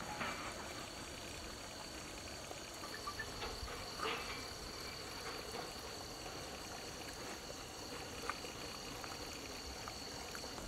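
Crickets chirring steadily in a constant high-pitched drone, with a few faint wet clicks and smacks of someone chewing food eaten by hand.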